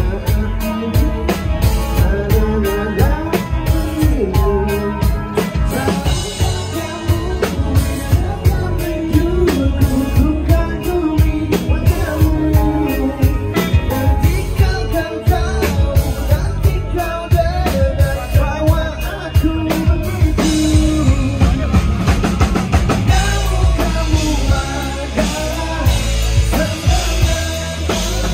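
Rock band playing live: drum kit, guitars and bass, with singing over them. The cymbals get brighter and busier about two-thirds of the way through.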